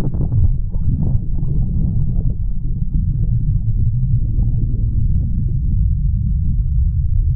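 A river in spate heard with the microphone underwater: a steady, muffled, deep rumble of fast, turbulent water, with some gurgling in the first few seconds.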